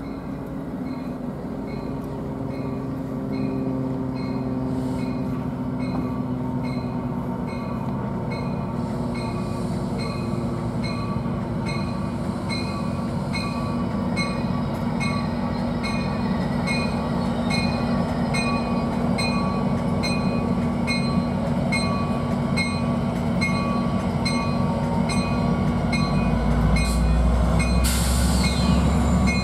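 Diesel train drawing near and growing louder, its engine running with a steady drone and a bell ringing evenly about twice a second. A deeper rumble builds near the end, with a brief rising squeal.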